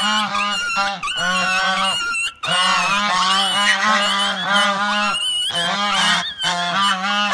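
Domestic goose honking over and over in quick calls, breaking off briefly about two seconds in and again near six seconds. It is an aggressive goose driving off a tiger cub with its wings spread.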